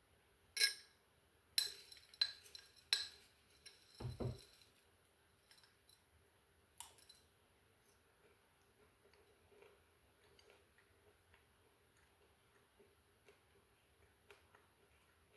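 Spoon clinking against a glass jar of dry oats: four sharp clinks that ring briefly, then a dull knock about four seconds in, followed by faint scattered ticks.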